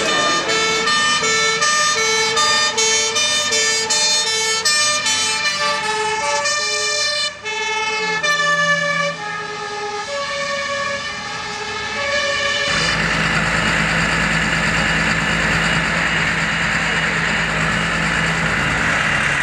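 Two-tone hi-lo siren of a fire engine, switching between two pitches a bit faster than once a second and dropping slightly in pitch about eight seconds in as the truck passes. About thirteen seconds in the siren stops, and a DAF LF ladder truck's diesel engine runs steadily close by.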